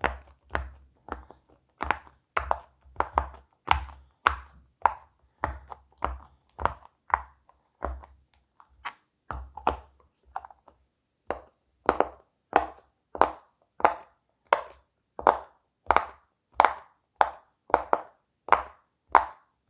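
Silicone pop-it fidget toy bubbles pressed one after another, each giving a short pop, about two a second. The pops grow louder and more even about halfway through.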